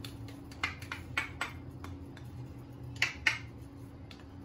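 A spoon tapping sharply against a stainless saucepan several times as chopped carrots go into boiling chicken stock, the two loudest taps about three seconds in, over a low steady hum.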